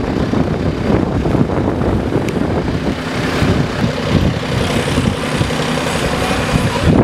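Garbage truck's diesel engine idling steadily, a continuous low rumble.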